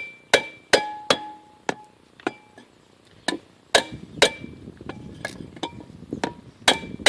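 Metal tools striking steel parts in a string of sharp clinks and taps, about two a second and irregularly spaced, several leaving a brief ringing tone.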